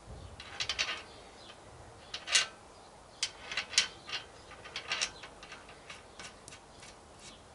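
Light metallic clicks and clinks, irregular and spread over several seconds, as a washer and nut are fitted by hand onto a motorcycle's threaded steering stem during a steering head bearing rebuild.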